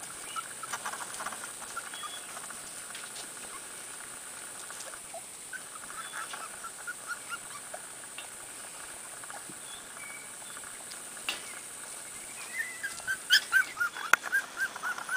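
Pembroke Welsh corgi puppy giving runs of short, high yips, about four a second, the loudest run near the end.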